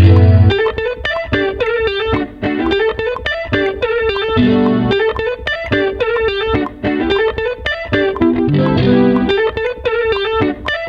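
Instrumental beat: a fast, steady run of plucked, guitar-like notes over a held low note, with a heavy bass hit at the start, another about four and a half seconds in and a pair near the end.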